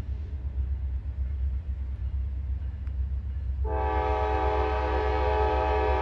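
Air horn of an approaching freight train's lead locomotive, a GE D9-44CW. A horn chord fades out at the start, and a new long blast begins about three and a half seconds in, over a steady low rumble.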